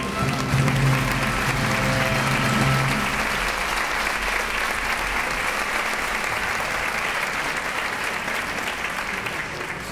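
Audience applauding in a theatre as the orchestra's final chord dies away in the first few seconds. The applause thins out near the end.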